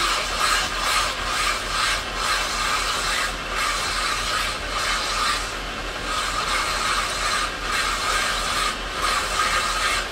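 Quartz crystal sphere being rubbed round and round by hand against a rotating wet grinding dish: a steady gritty grinding scrape over a low machine hum, easing off briefly several times as the stone is lifted and turned.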